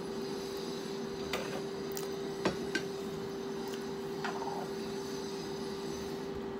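Someone eating chicken with their hands: a few small sharp clicks and mouth sounds, the loudest about two and a half seconds in, over a steady hum.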